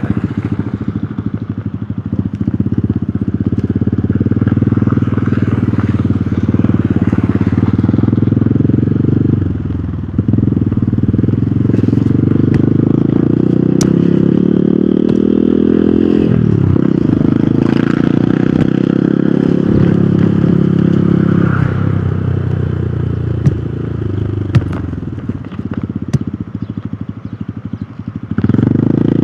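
Hero Hunk motorcycle's single-cylinder engine running under way, climbing in pitch as it accelerates, dropping suddenly at a gear change just past the halfway mark, then holding steady before easing off and picking up again near the end.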